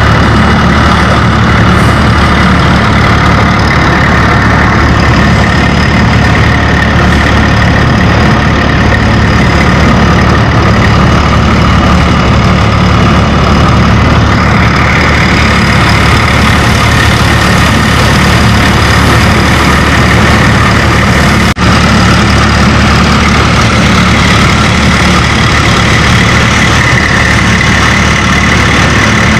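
Eicher 480 tractor's diesel engine running steadily under load, driving a threshing machine that chews through whole mustard plants as they are fed in; the combined engine and thresher din is loud and constant, with one very brief dropout about two-thirds through.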